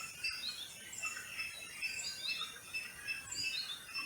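Several birds chirping and calling in a busy chorus of short, quick rising and falling notes, over a steady high insect drone.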